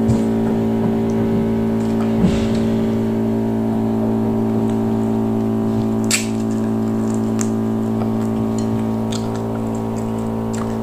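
A loud, steady machine hum holding one pitch, with wet eating and finger-sucking smacks over it, a sharp click about two seconds in and another about six seconds in.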